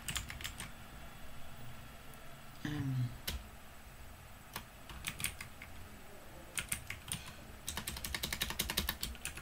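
Computer keyboard being typed on in irregular bursts of keystrokes, ending in a fast run of typing, with a brief hum of voice about three seconds in.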